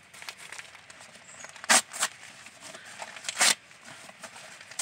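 Newspaper being crumpled and rustled by hand, with two sharp crinkling bursts about a second and a half apart and softer rustling between them.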